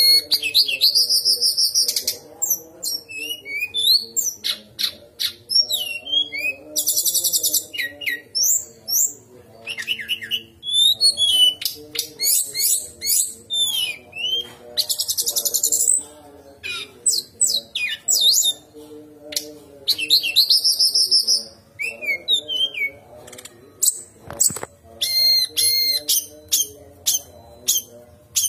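Brown-chested jungle flycatcher singing a fast, varied song: gliding whistles, quick trills and rapid buzzy rattles in short phrases with brief pauses.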